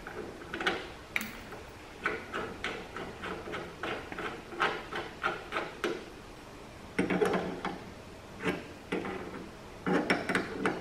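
Irregular small clicks, taps and knocks from a rubber gas hose and its brass fitting being handled and threaded onto a welder's gas inlet, with sharper metal clicks of pliers gripping the fitting near the end.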